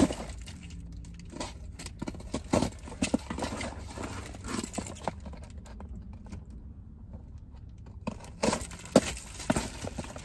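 A cardboard mail package being opened by hand: scattered clicks, scrapes and rustles as the box and its tape are worked open. The handling quiets for about two seconds past the middle, then comes back louder near the end.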